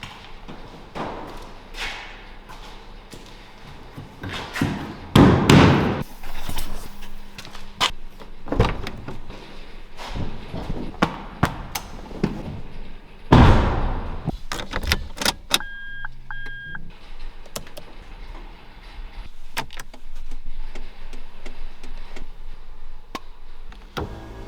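Lexus IS200 SportCross doors and fittings being worked: a string of clicks, knocks and thunks, with two heavy door-shutting thunks, one about a fifth of the way in and one just past halfway. Two short beeps sound about two-thirds of the way through.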